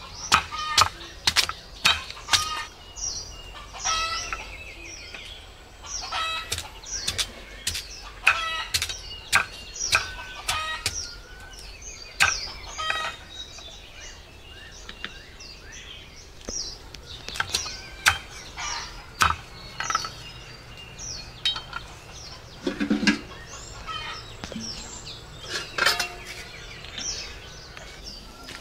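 Kitchen knife chopping through root slices onto a wooden chopping board in sharp, irregular knocks, thickest in the first half. Chickens cluck and chicks cheep between the chops.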